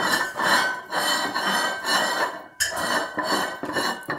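Dog licking a ceramic plate on a tiled floor, its tongue rasping over the plate and the plate scraping on the tiles in repeated strokes, about two a second, with a brief break about two and a half seconds in.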